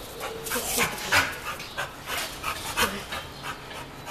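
A dog panting close by in quick, uneven breaths.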